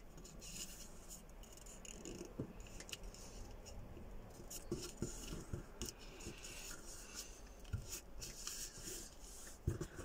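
Origami paper being folded by hand: faint rustling and rubbing as a flap is brought in and its crease pressed down, with a few faint clicks and a soft knock near the end.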